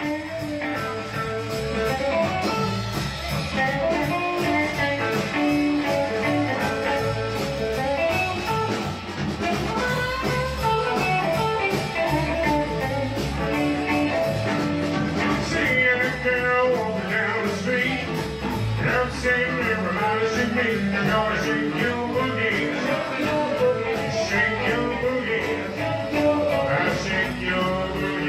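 Live band playing a bluesy rock'n'roll number on electric guitar, electric bass and drum kit.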